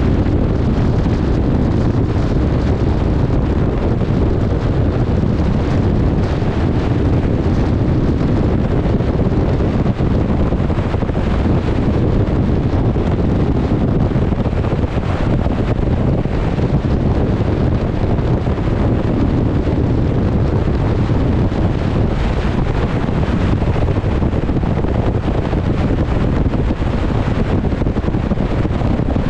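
Wind buffeting the microphone aboard a ship at sea, a steady low rush, with the wash of choppy open water beneath it.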